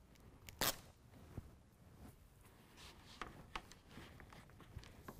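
Faint crackling and rustling as the plastic backing is peeled off a self-adhesive hook fastener pad and the carpet-faced bed mat is handled and pressed down. There is one sharper crackle just over half a second in, and a cluster of small crackles around three seconds in.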